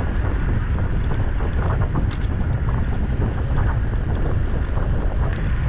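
Wind buffeting the microphone of a camera on a moving bicycle, a steady low rumble. A single short click about five seconds in.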